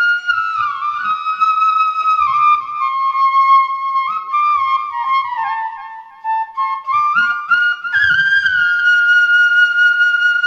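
Instrumental background music: a single melody line of held notes that step and slide in pitch, ending on a long held note.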